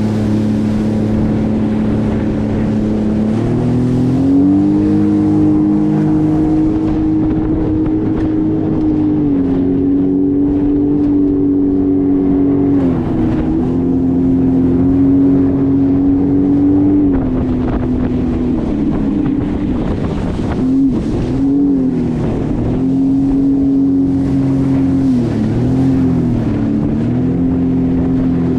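Jet ski engine running under way, its pitch stepping up and down several times as the throttle changes, with a few quick dips and rises near the end.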